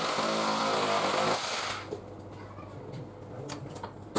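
Electric power drill running as it bores into the wall, stopping a little under two seconds in; the rest is a lower background hum.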